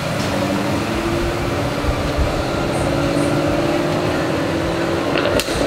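Jaguar F-Type coupe's V8 running at low revs as it pulls away, a steady exhaust drone whose pitch sags slightly as it recedes. A sharp click sounds near the end.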